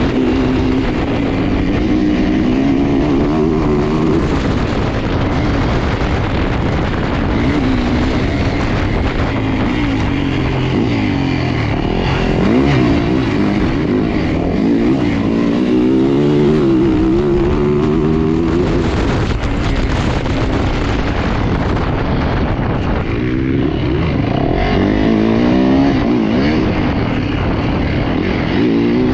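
Dirt bike engine racing hard, its pitch climbing and dropping back over and over as the throttle is worked on and off around the track.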